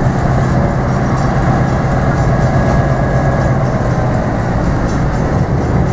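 EMD diesel engines of a three-unit locomotive consist, two GP9u road switchers and an SW14 switcher, running with a steady low drone as the consist rolls slowly past.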